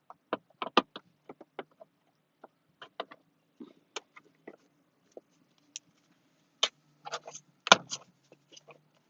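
Scattered light clicks and knocks at irregular spacing from hands working on the plastic steering-column cover, with one louder knock near the end and a faint low hum underneath.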